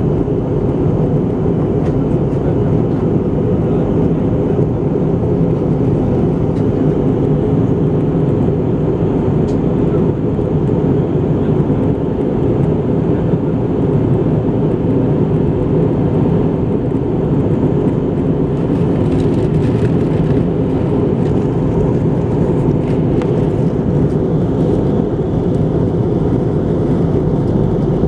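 Steady cabin noise inside an Airbus A320-214 in descent: the low, even rush of its CFM56 turbofan engines and the airflow over the fuselage, with a faint steady hum in it.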